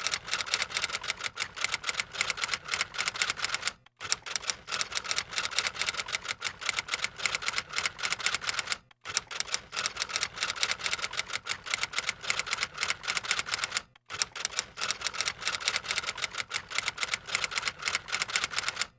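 Typing sound effect: a fast, continuous run of key clicks, many a second, broken by three short pauses about four, nine and fourteen seconds in.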